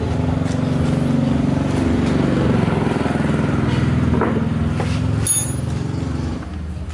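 A motor vehicle's engine running close by, growing louder and then falling away about six and a half seconds in, as a vehicle passing. A short, sharp metallic click sounds about five seconds in.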